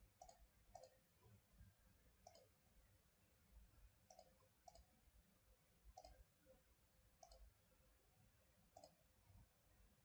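Faint computer mouse clicks, about eight of them at uneven intervals, some in quick pairs, over near-silent room tone.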